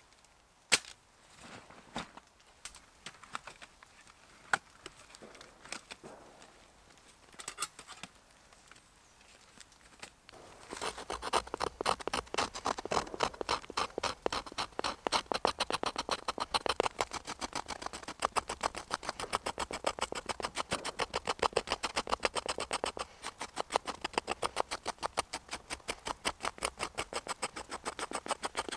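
A knife blade scraping birch bark into fine tinder dust, in rapid, even strokes that start about a third of the way in and keep going. Before that there are only scattered clicks and taps.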